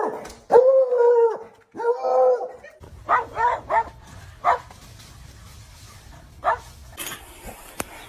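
A dog vocalising: two drawn-out pitched calls, then several short sharp yips or barks, with one more a couple of seconds later.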